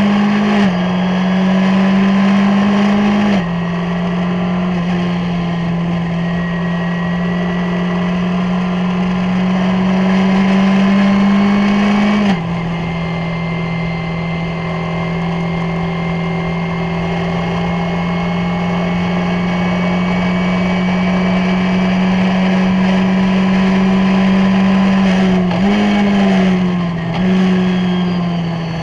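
Skip Barber formula race car's 2.0-litre SOHC four-cylinder engine at full throttle, heard onboard. It climbs slowly in pitch and drops sharply at each upshift: about a second in, about three seconds in and near halfway. Near the end the pitch jumps up and steps down as the car brakes and shifts down for a corner.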